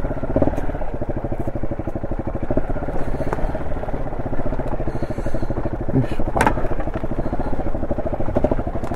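Honda SL230's air-cooled single-cylinder four-stroke engine running under way through an aftermarket muffler, on a carburettor rejetted to suit it. The engine note holds fairly steady, with a sharp click about six and a half seconds in.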